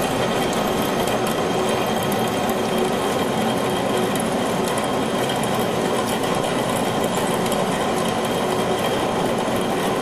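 Heavy CNC lathe cutting metal under flood coolant: a steady, dense whir and hiss with a faint steady hum running through it.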